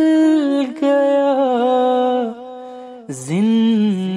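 A man singing a noha (Shia lament) in long held, wavering notes. Near the end the voice dips, then glides up into the next drawn-out note.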